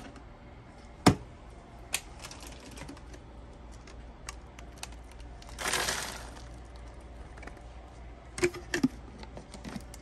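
Sharp plastic clicks from the dust cup of a MOOSOO U19 cordless stick vacuum being unlatched and handled, the loudest about a second in, and a brief rustle near the middle as the collected debris falls out into a trash can. A few more clicks come near the end.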